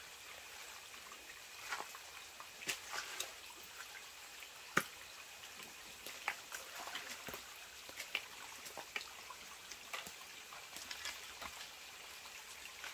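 Loose stones clicking and knocking against each other as rocks are turned over by hand, a scattered run of small knocks with one sharper knock near the middle, over a faint steady background hiss.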